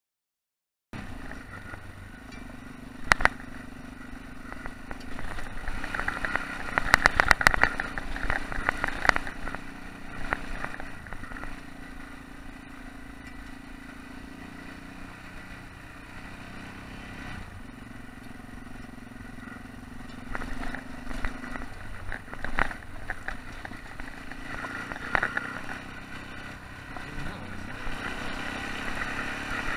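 Yamaha XT660X's single-cylinder engine running as the bike rides over gravel, its note shifting up and down with the throttle, starting about a second in. Sharp knocks and clatter from the bike over the rough track come at several points, busiest around seven to nine seconds in.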